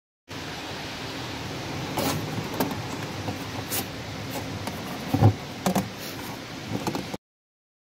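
Scattered knocks and clicks of parts and tools being handled during fuel pump reinstallation, over a steady hiss, the loudest a single thump a little over five seconds in.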